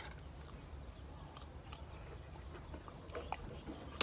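Quiet eating sounds: chewing, with a few faint, scattered clicks of a spoon and fork against a plate.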